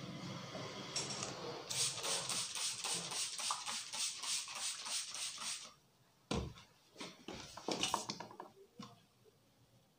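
Trigger spray bottle of water pumped rapidly, giving a run of hissing sprays several times a second for about four seconds, then stopping abruptly. A few soft taps and knocks follow.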